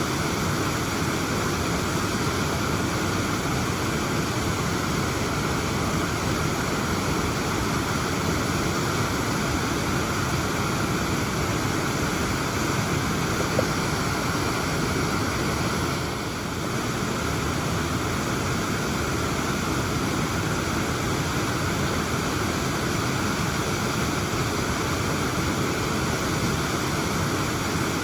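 Waterfall rushing steadily: a constant, full wash of falling water.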